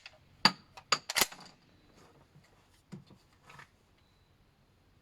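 A semi-automatic shotgun's action being worked by hand to clear a jammed shell: a quick run of sharp metallic clicks and clacks in the first second and a half, then a couple of fainter knocks a little later.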